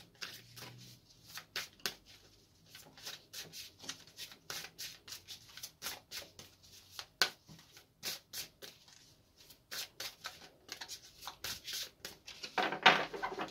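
Oracle cards being shuffled by hand: a quick, irregular run of soft clicks and slaps of card against card, a little louder near the end.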